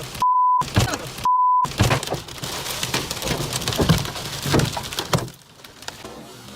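Hailstones pelting a vehicle in a dense clatter of hits. Two short censor bleeps cut in about a quarter second and a second and a quarter in, and these are the loudest sounds. The clatter dies down about five seconds in.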